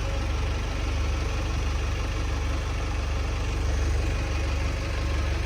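GAZelle Next truck's engine idling steadily, a low even hum with a slight pulsing.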